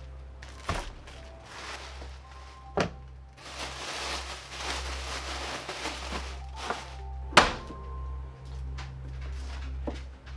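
A chef's knife knocks a few separate times on a cutting board as bell pepper and garlic are sliced; the loudest knock comes about seven seconds in. A stretch of rustling noise fills the middle, with quiet background music throughout.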